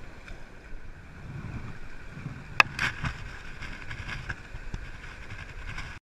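Running river water and wind on the microphone, with rustling of handling and one sharp click about two and a half seconds in.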